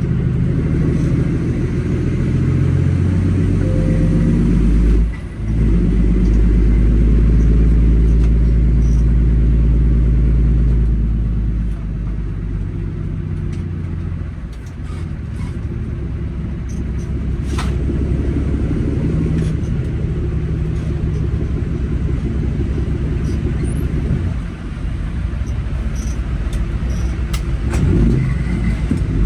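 Semi truck's diesel engine running at low speed. The level dips briefly about five seconds in, runs louder for a few seconds, then drops and dips twice more later.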